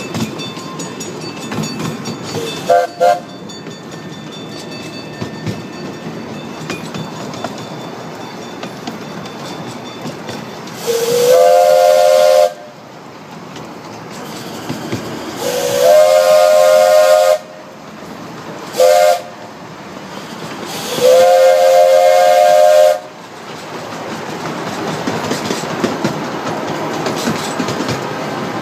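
Small steam locomotive's chime whistle over the steady running noise of the moving train: two short toots about three seconds in, then long, long, short, long, the grade-crossing signal. The first long blast slides up in pitch as it opens.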